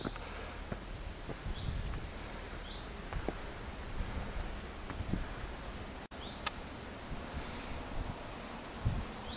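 Small birds singing in woodland: short high chirps and twittering phrases recurring every second or so, over a steady outdoor hiss with a few soft low thuds.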